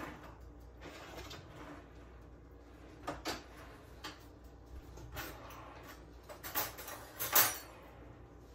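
Kitchen handling noises: scattered knocks and clatter of household items being moved, with two sharp clacks about three seconds in and the loudest knock near the end.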